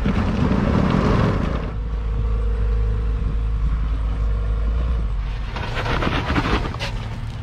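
Jeep Wrangler Rubicon 4xe plug-in hybrid crawling over sandstone ledges. A rush of noise at first gives way to a steady low drivetrain rumble with a steady whine over it, and near the end come bursts of scraping and crunching as the tyres climb the rock.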